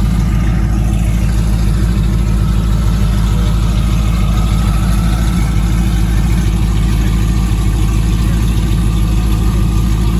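Whipple-supercharged Jeep Grand Cherokee Trackhawk and twin-turbo Ford F-150 idling loudly and steadily at the start line before a race.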